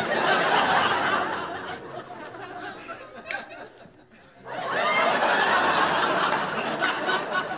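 Studio audience laughing in two waves: a loud burst at the start that fades over about two seconds, then a second swell of laughter beginning about four and a half seconds in.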